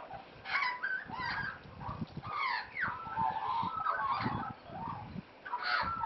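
Australian magpies calling: an irregular run of short, gliding, warbling notes, with a louder burst about half a second in and another near the end.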